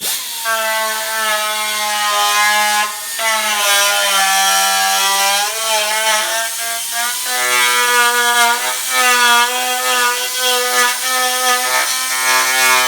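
An electric grinder running on metal: a loud, steady whine with a hiss. Its pitch dips and shifts several times as the tool is pressed into the work.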